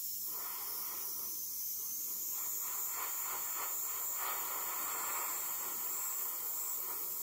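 FA-180X airbrush with a 0.3 mm nozzle spraying thinned acrylic paint at about 1 bar: a steady hiss of air.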